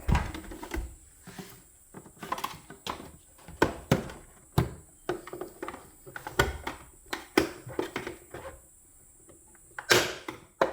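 Irregular plastic clicks and knocks as the clipped-on cover of a Breville Barista Express espresso machine is pried and worked loose, with a sharper, louder knock near the end.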